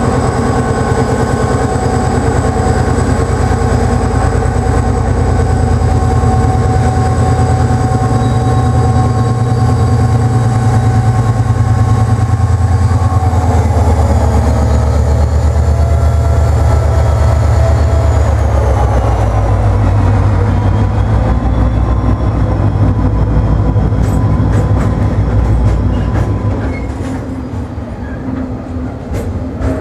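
Irish Rail 071 Class diesel-electric locomotive, its EMD V12 two-stroke engine running steadily as it approaches, with the engine tones dropping in pitch as it passes about halfway through. Near the end the laden timber wagons roll by, their wheels clicking over the rail joints.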